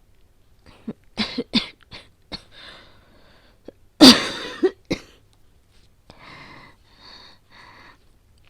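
A woman's performed coughing fit, voicing an asthmatic with a cold. Several short coughs come about a second in, then one loud harsh cough around four seconds in, the loudest sound here. It ends with three strained, breathy in-breaths.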